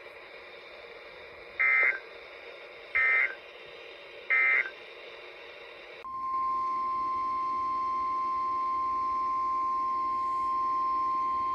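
Three short warbling digital data bursts of the EAS/SAME code, each about a third of a second and about a second and a half apart, the end-of-message signal closing a weather-radio warning. Then, about six seconds in, the steady single-pitched NOAA Weather Radio alert tone near 1 kHz sounds over faint radio hiss, the signal that a new warning follows.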